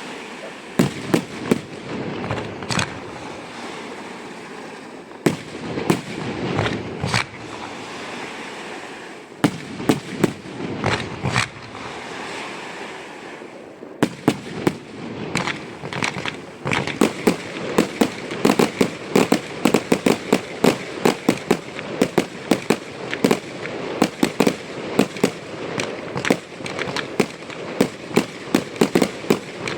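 Fireworks display: loud bangs, scattered at first over a steady crackle. From about halfway the bangs come fast, several a second, in a continuous barrage.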